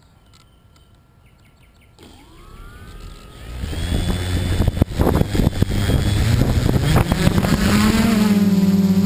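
Xaircraft X650 quadcopter's electric motors and propellers spooling up. After about two seconds of quiet a rising whine starts and grows louder over the next few seconds, then settles near the end into a steady, loud buzzing hum as the quad lifts off.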